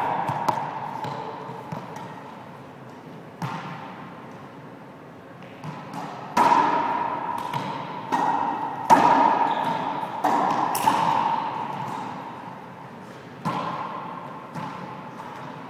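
Racquetball rally: a series of sharp smacks, about eight, as the rubber ball is struck by racquets and rebounds off the court walls and floor, each one ringing on in the enclosed court.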